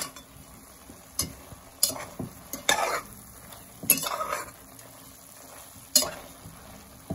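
Slotted spatula scraping and knocking against a pot while stirring shredded chicken, about five strokes at irregular intervals, one of them a longer scrape. A low sizzle of the chicken cooking runs underneath.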